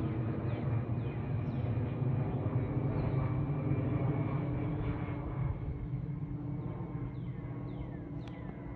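Jet airliner passing overhead above low cloud: a steady, low engine rumble that begins to fade a little after halfway through.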